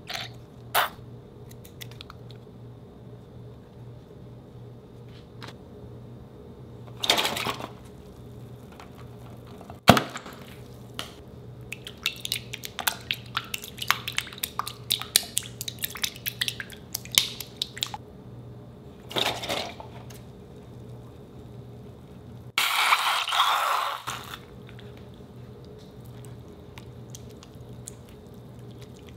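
Green silicone spatula stirring wet white glue slime in a glass bowl: sticky squishing with runs of small crackling clicks, densest in the middle. A sharp knock on the bowl comes about ten seconds in, and a louder rush of noise lasts about a second and a half near the end.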